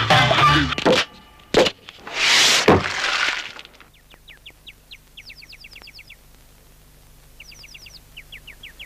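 Stop-motion cartoon sound effects: a sharp crack, then a hissing rush, then faint clusters of quick, high, falling chirps.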